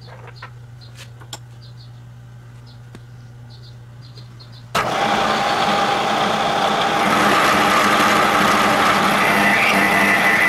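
Bridgeport milling machine: a low steady hum with a few light clicks, then about halfway the mill's running and cutting noise starts suddenly and carries on loud and steady. The sound is the end mill taking a flat off the steel chuck-wrench stock.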